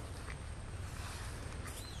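Quiet outdoor ambience: a steady low rumble and even hiss, with a faint short chirp near the end.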